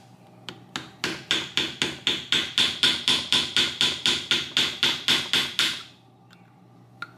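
A hammer tapping a small flat screwdriver to drive out a stuck Woodruff key: a fast, even run of light metallic taps, about four or five a second. They stop about six seconds in, and one more tap follows near the end.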